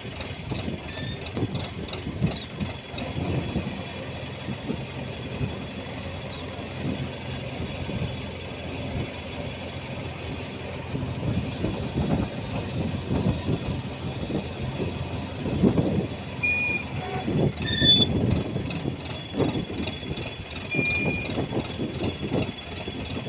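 Fishing boat's engine running steadily, with irregular water splashing as the net is hauled and fish leap in it. A few short high-pitched tones sound about two-thirds of the way through.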